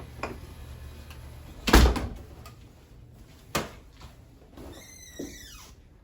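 Two sharp thumps, like a door banging shut, about two seconds and three and a half seconds in, with lighter knocks around them. Near the end comes a brief sound with several tones that falls in pitch.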